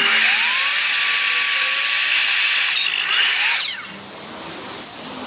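Evolution F255SMS sliding mitre saw starting with a rising whine, its 255 mm multi-material TCT blade cutting through a laminated MDF strip. The loud running noise falls away and stops about four seconds in.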